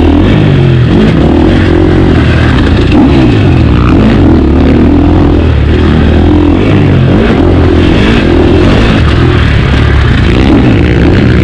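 Two-stroke motocross bike's engine, heard up close from the bike itself, revving hard and easing off over and over as it is raced around the track, its pitch rising and falling with each burst of throttle.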